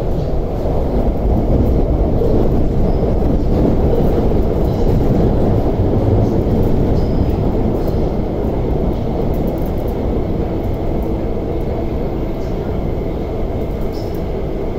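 Interior running noise of an MTR SP1900 (IKK) electric train cruising between stations through a tunnel: a steady, loud rumble of wheels on rail and car body, with a faint steady high tone above it.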